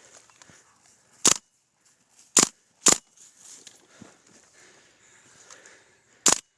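Airsoft gun shots: four sharp, separate snaps. The first comes about a second in, two follow close together about half a second apart, and the last is near the end.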